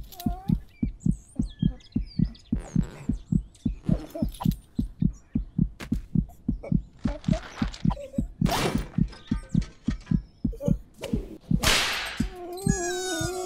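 A fast, steady low thumping pulse like a racing heartbeat, about three beats a second, laid under the scene as tension. Several short whooshing rustles pass over it, the loudest near the end, and a wavering pitched moan starts just before the close.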